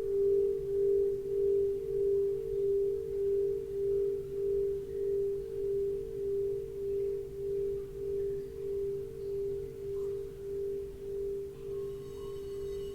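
A singing bowl ringing out in a low steady tone that wobbles about twice a second and slowly fades. Near the end a second, higher-pitched bowl is struck and starts to ring.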